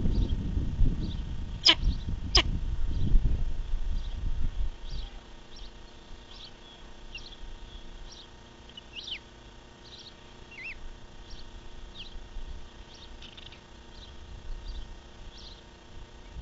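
Osprey chick sneezing twice: two short, sharp, high-pitched sounds less than a second apart, about two seconds in, over a low rumble that fades after a few seconds. Faint short high chirps repeat through the rest.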